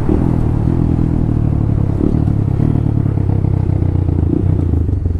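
Honda Grom's 125 cc single-cylinder engine running steadily as the bike rides along, heard up close from the rider's position.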